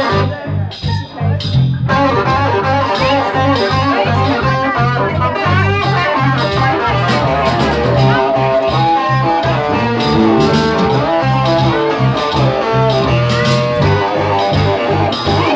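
Live blues jam: an electric guitar plays lead lines with bent, wavering notes over bass guitar and rhythm guitar. The full band comes in about two seconds in.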